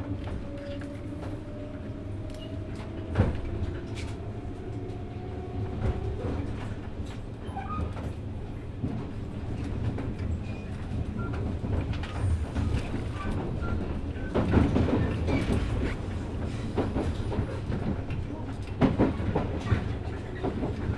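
Running sound inside a 183 series electric train's motor car: the MT54 traction motors hum, rising slowly in pitch, and cut off about six seconds in. A steady rumble and the knocks of the wheels over rail joints run on under the hum, with a denser cluster of knocks about two-thirds of the way through.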